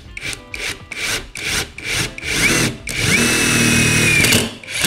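Metabo SSD 18 LT 200 BL cordless brushless impact driver driving a self-drilling screw into a thin-walled steel tube. For about two seconds it runs in short trigger pulses, about five a second. Then it rises to a steady whine for over a second and stops abruptly.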